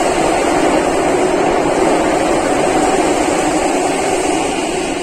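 Cabin noise of a Singapore MRT Circle Line train running through a tunnel between stations: a loud, steady rumble and rush of wheels and tunnel air, easing off slightly near the end.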